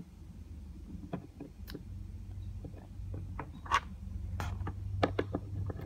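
Small plastic clicks and taps of Littlest Pet Shop figures and their accessories being handled as a collar, clip and vest are fitted onto them, over a faint low hum.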